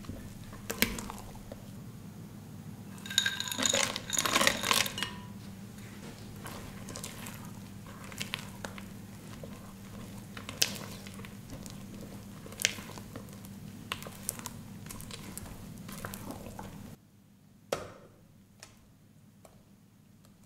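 Silicone spatula folding thick fruit cake batter in a glass bowl: wet squishing and scraping strokes, with a cluster of sharp knocks that ring on the glass bowl about 3 to 5 seconds in. Near the end the sound drops and the batter lands in a lined cake tin with one soft plop.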